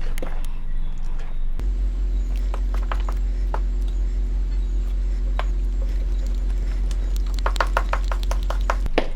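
Small electric kitchen blender motor switching on about a second and a half in and running steadily while blending seasoning, with clicks and knocks from the contents. A fast run of clicks comes just before the motor stops near the end.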